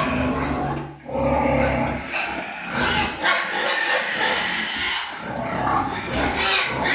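Pigs squealing and grunting, loud and nearly continuous.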